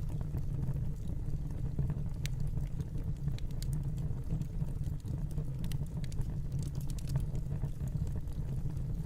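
Wood fire crackling in a fireplace: scattered sharp pops and crackles over a steady low rumble.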